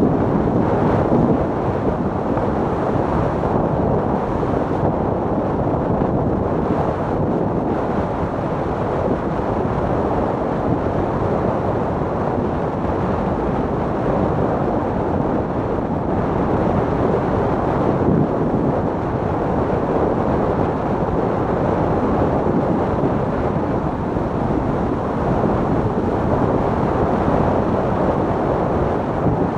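Steady rushing wind on the camera microphone mixed with the hiss and scrape of a sport luge's railed runners sliding fast over packed snow.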